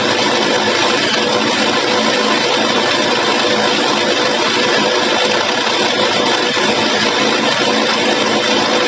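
Mollar HD-826 rotary hammer drill running steadily under load, its 65 mm (2-inch) hollow core bit cutting into a masonry wall.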